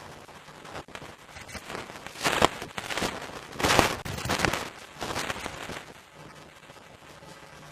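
Footsteps crunching and rustling through dry fallen leaves and brittle brush: a string of loud, irregular crackles lasting about four seconds, then stopping.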